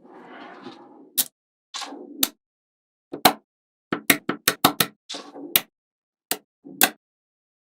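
Magnetic balls snapping together with sharp clicks, about a dozen, with a quick run of them about four seconds in. Short rattles of the balls rolling and sliding against each other come between the clicks, the longest at the start.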